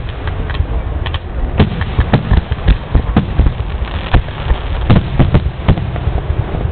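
Fireworks display: aerial shells bursting in quick, irregular bangs, several a second, over a continuous background noise from the display.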